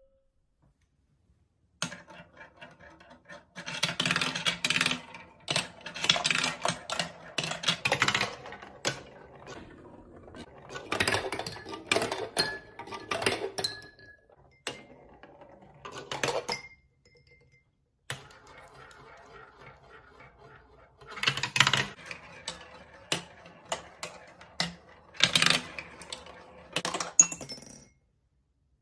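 Marble run clattering: hard little clicks and rattles of marbles and plastic track pieces, coming in repeated clusters a second or two long with short pauses between.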